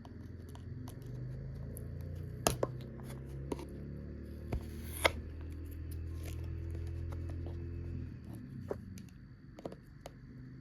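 Toy packaging being worked open by hand, with scattered sharp clicks and snaps, the loudest about two and a half and five seconds in. A steady low hum runs underneath and stops about eight seconds in.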